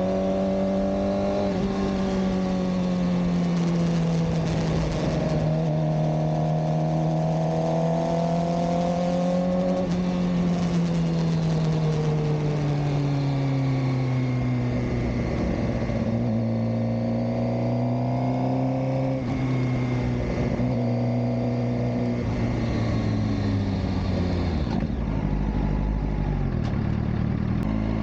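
Suzuki GSX-R600 inline-four engine running at moderate revs while being ridden, with road and wind noise. The engine note eases off and falls gradually through the middle, then climbs again near the end as the throttle is opened.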